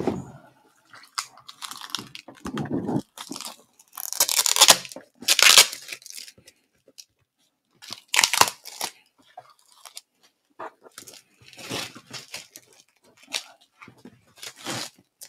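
Packing tape being ripped by hand off a large shipped roller duffel bag: a string of short, loud tearing rips, the loudest about four and five seconds in, with quieter rustling and handling of the bag between.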